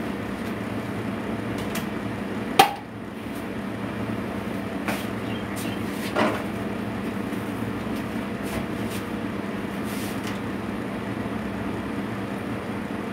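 Kitchen work noises over a steady electrical hum: one loud sharp knock about two and a half seconds in, then a couple of lighter clicks.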